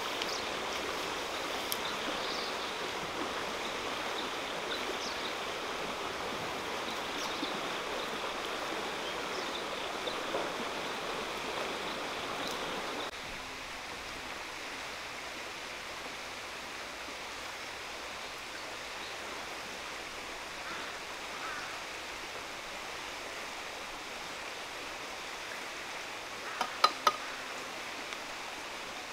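Steady outdoor background hiss, an even rushing noise with no clear single source, which drops a little in level about halfway through. Three quick knocks come close together near the end.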